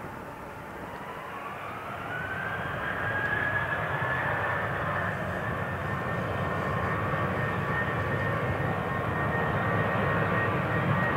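Boeing 747-400 freighter's four jet engines spooling up to takeoff power: a whine rises over about two seconds, then holds steady as the engine noise grows louder.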